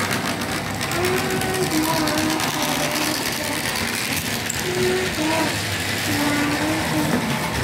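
Small DC model steam tram locomotive running along the track, its motor and gears whirring steadily with fast fine clicking from the wheels on the rails. A few faint held tones of changing pitch sound in the background.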